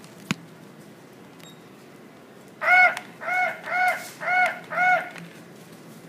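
Talking toy parrot's electronic squawk, sounding five times in quick even succession, each call rising and falling in pitch; a single sharp click comes about a third of a second in.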